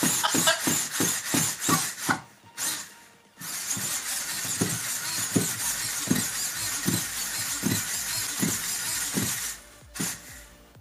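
Background music with a steady beat, cutting out briefly about two seconds in and again near the end.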